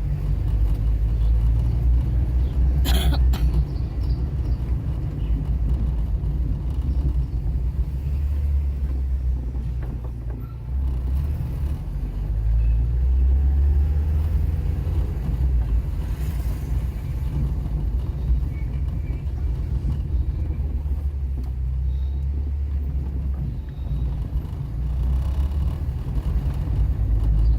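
Car driving: a steady low engine and road rumble that swells and eases a little, with one sharp knock about three seconds in.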